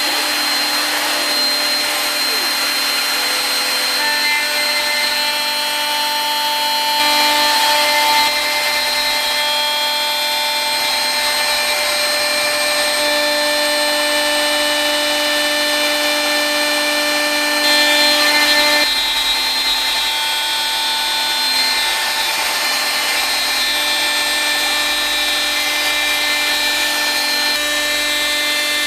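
Home-built CNC router's spindle running with a steady whine of several fixed tones while its cutter mills the outer contour of a 10 mm compact laminate panel. The cutting noise swells briefly twice, once about seven seconds in and again about two-thirds of the way through.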